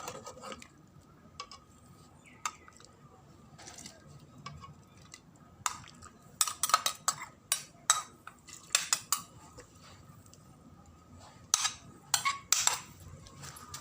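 Kitchen utensils clinking and scraping against a pot and mortar as pounded curry paste is added to a simmering pot. The sharp clinks come in irregular clusters, mostly around the middle and near the end.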